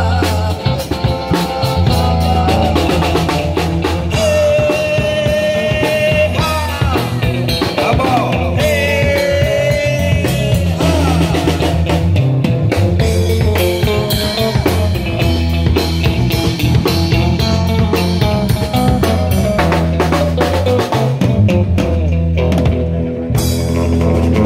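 Buskers' band playing live rock-style music: drum kit with snare hits and guitar under a held, slightly bending melody line.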